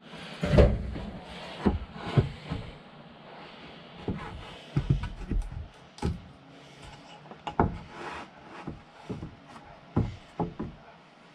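A 1x6 pine board being handled on a miter saw's bed: irregular wooden knocks, clunks and short scrapes as it is set down and pushed against the fence, the loudest right at the start.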